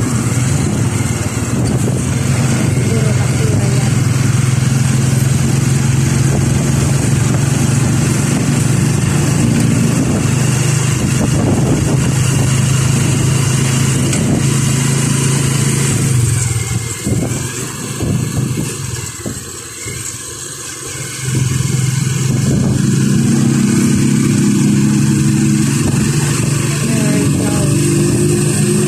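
Motorcycle engine running steadily while riding, with wind and road noise. About two-thirds of the way through it eases off and goes quieter for a few seconds, then picks up again, its pitch rising near the end.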